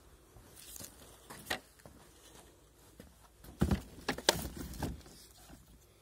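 Plastic knocks and clunks of an iRobot Roomba e5 robot vacuum's body being handled and turned over: a couple of light clicks, then a cluster of sharp knocks a little past the halfway point.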